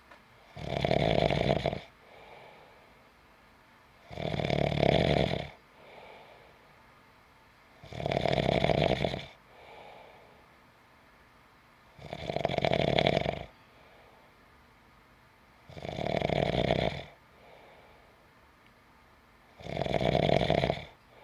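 A sleeping person snoring in a slow, steady rhythm: six loud snores on the in-breath, about one every four seconds, each followed by a faint, soft out-breath.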